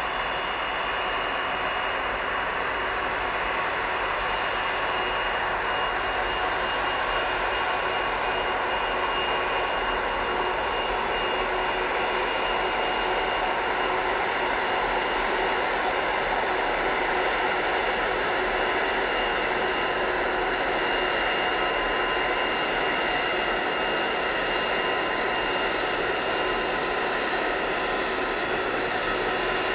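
Airbus A330 twin-engine airliner's turbofan engines at low taxi power as it rolls past, a steady whine with a few high steady tones, the highest growing stronger in the second half.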